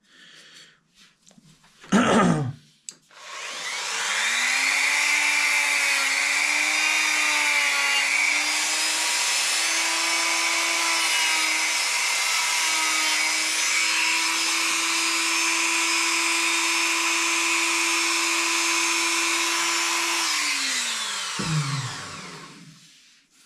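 Handheld high-speed rotary tool switched on after a short knock, running up to speed with a high whine and holding it for about seventeen seconds, its pitch dipping slightly now and then as it works the antler handle, then spinning down near the end.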